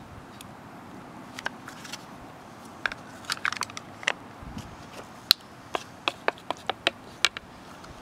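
Dry, papery crackles and sharp clicks of garlic skin being peeled off a clove by hand: a cluster of crackles near the middle, then a run of single sharp clicks.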